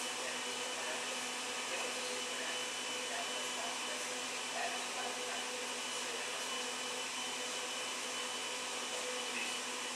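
Steady, even hiss of outdoor ambience with a faint steady hum beneath it.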